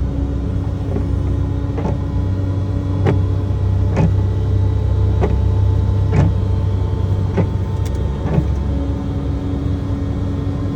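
Diesel engine of a wheel loader running steadily under way, heard from inside the cab, with a sharp knock about once a second.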